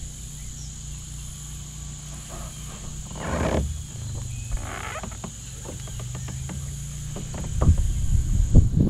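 A steady high-pitched insect drone over a low hum, with a few rustles and clicks, then louder knocks and rumbling near the end as gear is handled in a plastic kayak.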